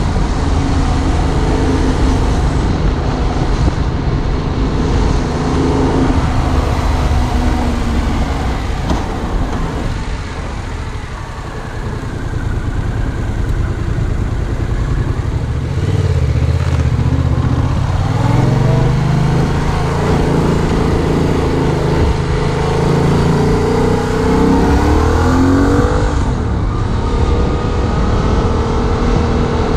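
Yamaha MT-07's 689 cc parallel-twin engine running under the rider, heard close up. It eases off and quietens about ten seconds in, then the revs rise and drop back several times as it accelerates through the gears before settling to a steady cruise.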